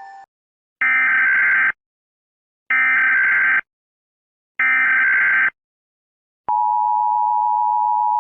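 Emergency Alert System alarm: three identical short bursts of SAME header data tones, about two seconds apart. Then, a little over six seconds in, the steady two-tone attention signal begins.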